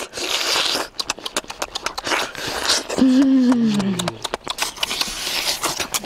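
Close-up eating sounds of cooked octopus being bitten and sucked: wet lip smacks and chewing clicks with short slurps, and a falling hummed "mmm" about three seconds in.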